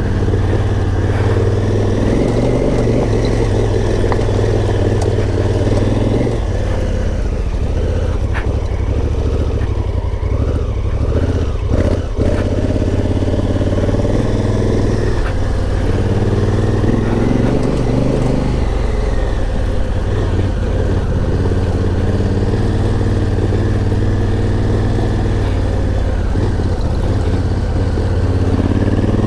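Honda Africa Twin's parallel-twin engine running at low speed under the rider on a rough, rocky dirt track, with the bike clattering over stones and a single knock about midway.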